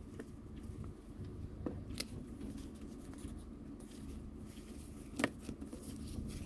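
Paper sticker sheets being handled and shuffled over a desk: light paper rustling with a few soft taps and clicks, the sharpest about five seconds in.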